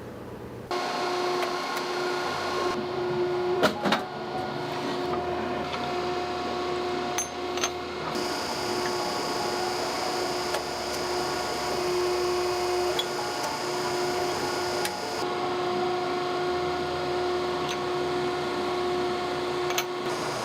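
Electric motor of workshop machinery humming steadily, its tone shifting abruptly every few seconds as stretches of footage are joined, with a sharp knock about four seconds in.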